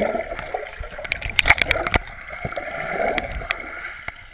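Muffled underwater pool noise picked up through a GoPro's waterproof housing: water sloshing and gurgling, with scattered sharp clicks and knocks.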